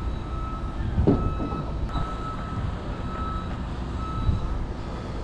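A vehicle's reversing alarm beeping at one steady pitch about once a second, over a low outdoor rumble.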